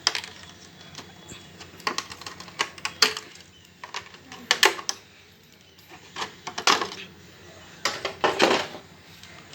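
Irregular clicks, knocks and short scrapes of hard plastic and metal as the body of a nitro RC truck is taken off by hand.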